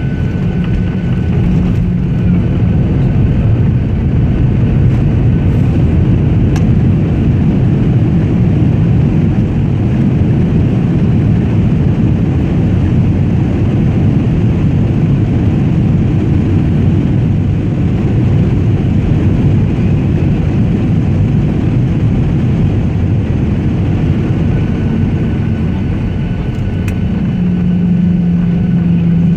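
Airliner cabin noise after landing: a loud, steady low rumble of the engines and the plane rolling on the ground. A steady low hum drops out about a second in and comes back near the end.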